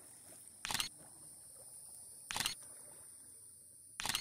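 Single-lens reflex camera shutter firing three times, about a second and a half apart, each a quick cluster of clicks. Under it runs a steady high insect buzz.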